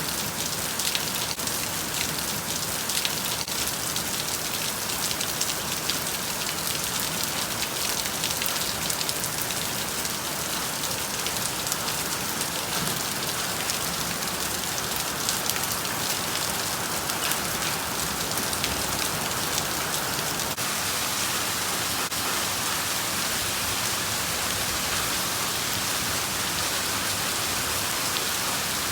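Steady rain falling on a surface, a continuous hiss with many separate drop hits through most of it, evening out into a denser, smoother rush in the last several seconds.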